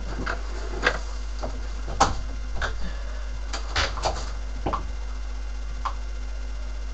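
Scattered light knocks and clicks at irregular intervals, over a steady low electrical hum.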